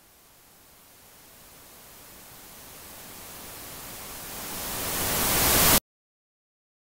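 A hiss of static-like noise swelling steadily louder and brighter for nearly six seconds, then cutting off suddenly: a white-noise riser sound effect.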